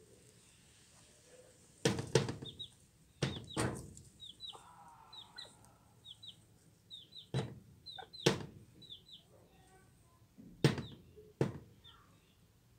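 A chick peeping: short, high, falling peeps, often in pairs, repeated throughout. Bantam hens peck and scratch at the coop floor, giving several sharp knocks, and one hen gives a brief low clucking call a little before halfway.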